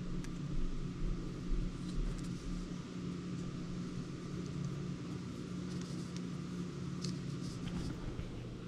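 Steady low hum in the background, with faint scattered ticks and crinkles of hands wrapping thread-seal tape around the threads of a plastic pipe fitting.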